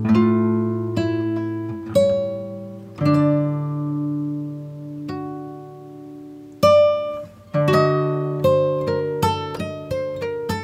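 Background music: an acoustic guitar playing plucked notes that ring and fade, slow at first and then quicker in the last few seconds.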